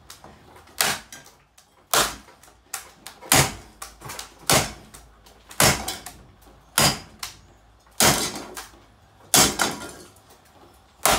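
Repeated sharp knocks on a Lanson ceiling fan, about one a second, some with a quick lighter second knock.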